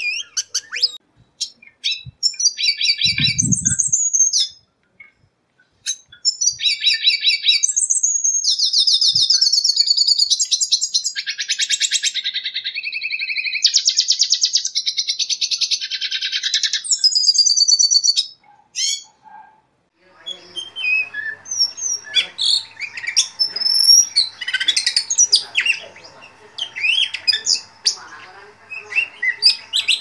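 Songs of a black-winged starling and a red siskin played one after the other. For most of the first eighteen seconds there are loud, high, fast twittering trills and whistles. After a short break comes a different recording of scattered chirps and calls over a faint steady hum.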